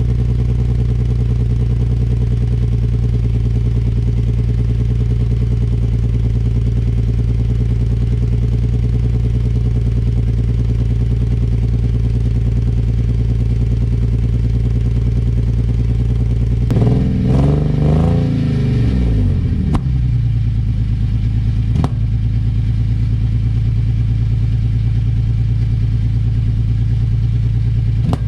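Nissan VQ37VHR 3.7-litre V6 idling steadily on its first start-up after an engine swap, with one throttle blip about 17 seconds in whose pitch rises and falls back over about three seconds. A couple of sharp clicks follow later.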